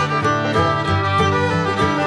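Background music in a bluegrass or country style, a fiddle playing over guitar, running continuously.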